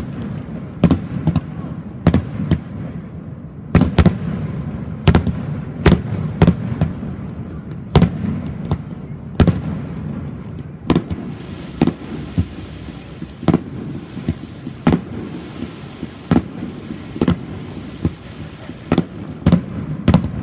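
Fireworks display: shells bursting in a rapid, irregular string of booms, about one or two a second. A crackling hiss joins in over the middle stretch.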